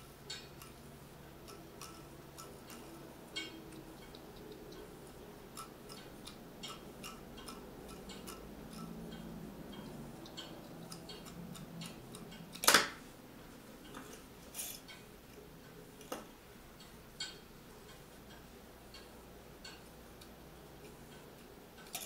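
Small irregular clicks and taps of plastic as a graphics card fan is handled, about one a second, with one much louder sharp click about 13 seconds in.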